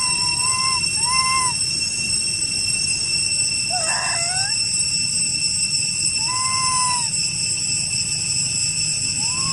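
Young macaques giving short, clear coo calls, five of them a few seconds apart, the middle one wavering up and down. A steady high-pitched insect drone runs underneath.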